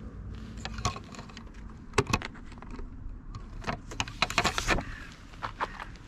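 Clacks and rattles from a clear plastic pamphlet holder being handled as a paper map is taken out: a couple of single clicks in the first two seconds, then a quick cluster of clatters in the middle and a few more near the end.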